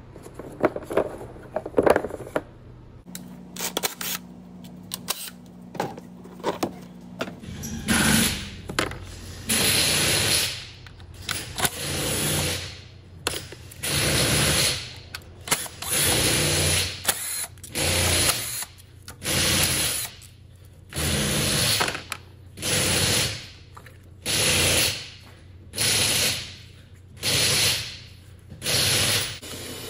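A power tool running in short bursts, backing out 10 mm bolts one after another: after a few clicks and knocks, runs of about a second each repeat roughly every one and a half seconds from about eight seconds in.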